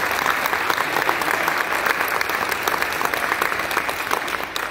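Audience applauding: many people clapping at once, thinning out near the end.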